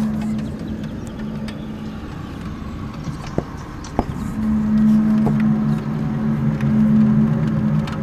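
Unexplained low drone from outside, several steady tones together, of the kind reported as mysterious 'strange sounds' from the sky. It fades out about two seconds in and swells back about four and a half seconds in.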